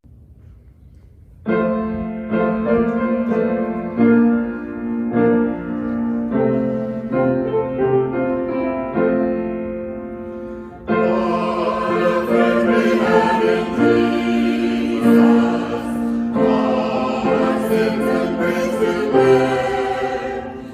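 Piano playing a slow hymn introduction, and from about eleven seconds in the music turns louder and fuller as singing voices join the piano.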